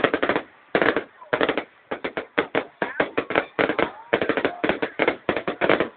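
Fireworks going off in rapid, irregular clusters of sharp cracks and bangs, several a second.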